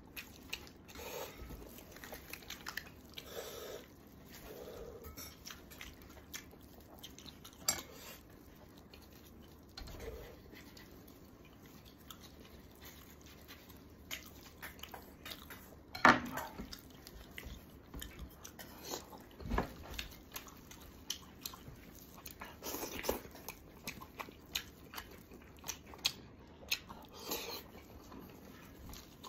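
Close-up eating sounds: wet tearing and pulling of braised pig's head meat by gloved hands, chewing and smacking, with scattered clicks and knocks of bone against the enamel plate, the loudest knock about sixteen seconds in.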